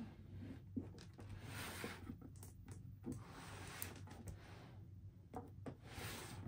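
Cardboard toy box being turned on a tabletop: faint rubbing and several soft taps and clicks of the box against the table and hand, over a steady low hum.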